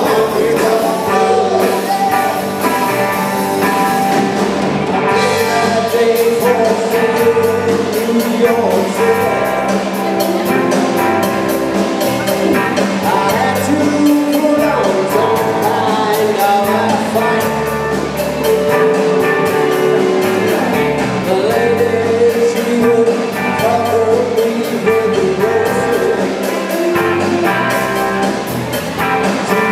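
Live rock band playing: electric guitars, bass and drum kit, with a lead vocal.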